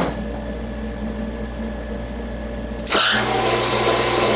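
A steady machine hum, then about three seconds in the metal lathe's spindle is switched on and the chuck spins up, the running noise jumping suddenly louder and staying steady.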